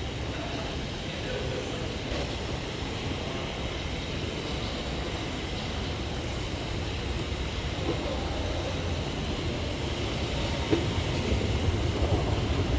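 Whoosh high-speed train running: a steady rumble and hiss that grows a little louder near the end.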